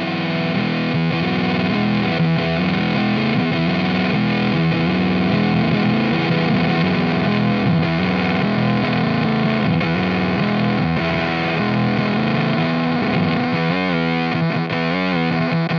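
Electric guitar with P90 pickups played through a Teisco Fuzz pedal: thick, heavily distorted sustained notes. Near the end the held note breaks up into a choppy sputter.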